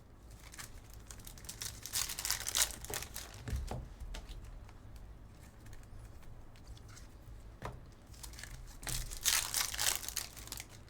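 Foil trading-card pack wrappers crinkling and tearing as packs are ripped open, in two bursts: one starting about half a second in and another around nine seconds in, with quieter handling rustle between.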